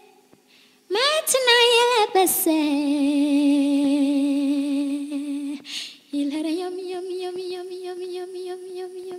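A high voice singing slowly, unaccompanied. It comes in about a second in with a rising slide, holds a long low note, breathes, then holds a higher note with vibrato.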